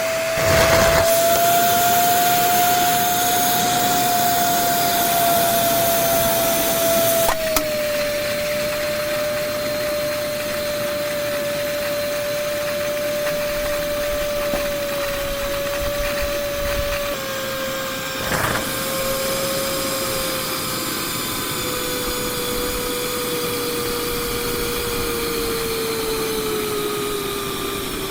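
Durabrand cyclonic canister vacuum cleaner running: a steady motor whine with a rush of air. It steps down in pitch partway through and then slowly sinks lower, with a couple of brief knocks.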